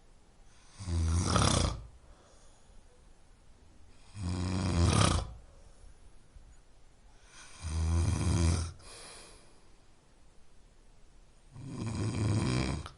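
A person snoring in slow, regular breaths: four loud, rattling snores of about a second each, roughly every three and a half seconds, with quiet breathing between them.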